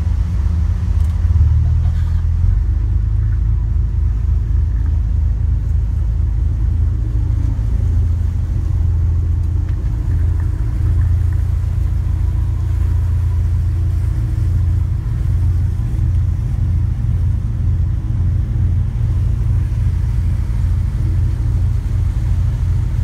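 Boat under way: its engine running with a steady low rumble, and wind buffeting the microphone.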